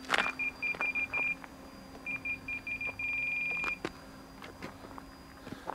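Radio-control transmitter beeping at one high pitch: a run of short, evenly spaced beeps, a pause of about half a second, more short beeps, then a fast run of beeps that runs into a long tone and stops a little under four seconds in.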